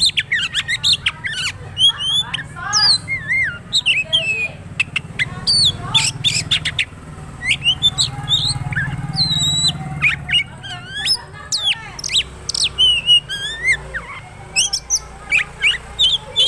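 Oriental magpie-robin singing a rapid, varied song of whistles, chirps, rising and falling notes and sharp clicks, running through the mimicked phrases it has learned from other birds. A faint steady low hum sits beneath.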